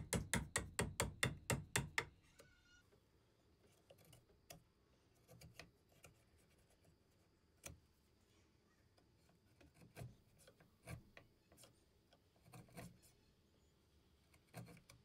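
A 1/8-inch mortise chisel working in hand-sawn spline slots in white oak. About a dozen sharp strikes come in quick succession, roughly five a second, over the first two seconds. After that there are scattered clicks and short scrapes as the waste is pared out.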